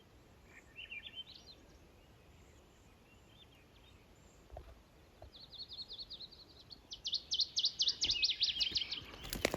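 Songbird singing: a short run of rising high notes about a second in, then from about five seconds in a long, rapid trill of repeated high notes that grows louder toward the end.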